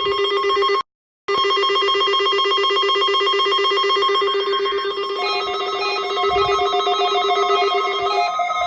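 Weather radio receiver's electronic alert tone, set off by the station's Required Weekly Test: a loud, rapidly trilling, buzzer-like tone that cuts out for a moment about a second in, then switches to a higher pitch about five seconds in.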